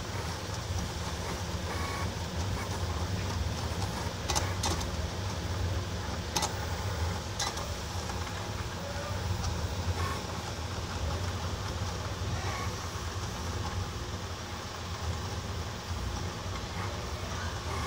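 Pen plotter's stepper motors whirring steadily as the carriage drives a marker across the sheet, drawing PCB traces. A few sharp clicks come about four to seven and a half seconds in.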